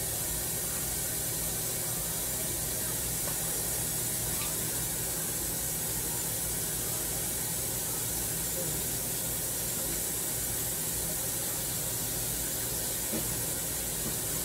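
Kitchen tap left running, a steady rushing hiss of water.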